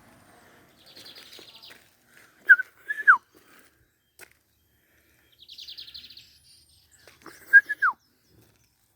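Lined seedeater (bigodinho) singing two song phrases. Each is a fast, high, buzzy trill followed by a few loud, lower whistled notes, the last one sliding down.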